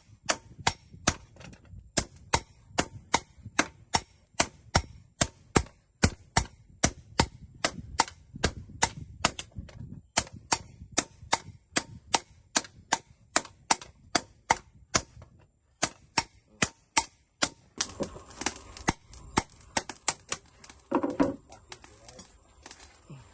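Hand hammer striking hot steel on an anvil while a knife blade is forged: a steady series of sharp blows, about two to three a second, with a couple of brief pauses. Near the end the blows stop and a less regular, noisier sound follows, with a brief louder sound about 21 seconds in.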